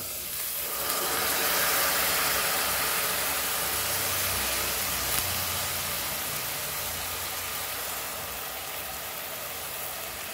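Hot oil sizzling as basmati rice is poured into a steel pot of frying onions and spices. The sizzle swells over the first two seconds, then slowly dies down as the rice settles in the oil.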